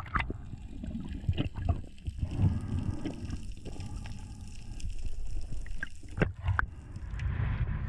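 Muffled underwater audio from a freediver's camera: low rumbling water movement with scattered knocks and clicks, two sharp ones about six seconds in, as a speared amberjack is handled on the spear shaft.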